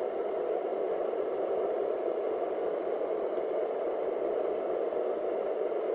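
Trangia gas burner heating a pot of water: a steady whooshing, quite loud.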